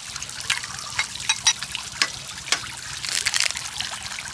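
Water trickling steadily, with irregular small pops and clicks throughout.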